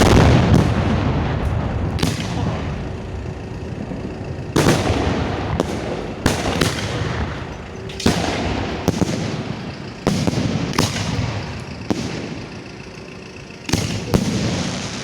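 Fireworks display shells firing and bursting: a string of sharp booms at irregular intervals, each trailing off in a long rumble, heard up close from the firing line.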